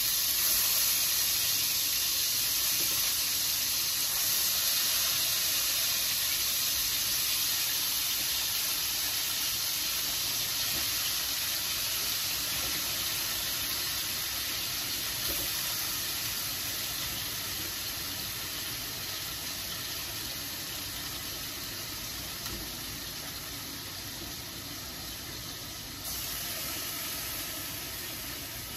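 Chicken pieces frying in hot oil in a skillet, a steady sizzle that slowly dies down as the pan cools. It flares up again near the end when another piece goes in.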